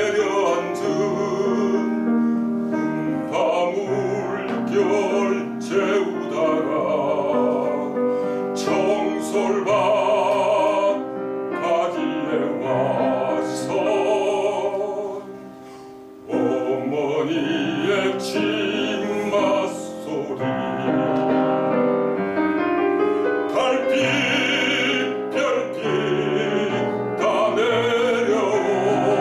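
A baritone singing a Korean art song with piano accompaniment, his voice carrying a wide vibrato on long held notes. About halfway through the music drops to a brief soft passage, then the voice and piano come back in full.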